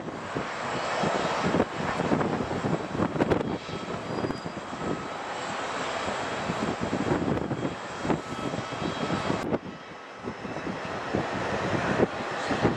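Jet airliner engine noise, a steady rushing sound that dips suddenly about nine and a half seconds in and then builds again.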